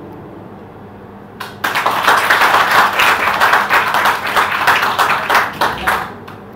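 Audience applauding, starting suddenly about a second and a half in as many hands clap together, then dying away just before the end.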